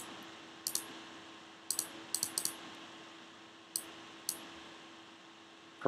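Sharp, quiet clicks of a computer mouse and keyboard, scattered: one about a second in, a quick run of three or four around two seconds in, then two more near four seconds, over a faint steady hum.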